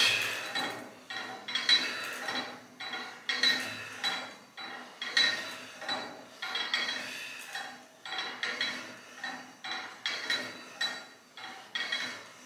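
Cable machine worked through repeated reps: the weight-stack plates and cable hardware clink with metal on metal once per rep, about one a second, each clink ringing briefly.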